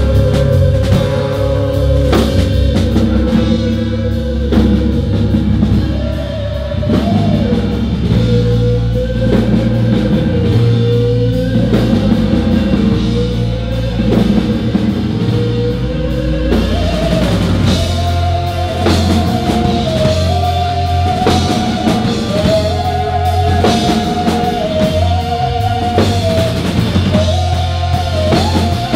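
Live pop band playing: drum kit, electric guitar, bass and keys, with a held, wavering melody line over the top that moves up a step about two-thirds of the way through.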